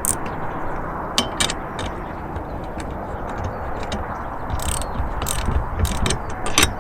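Nylon zip ties being pulled tight, their ratchet teeth giving scattered clicks and short rasps, over a steady background rush.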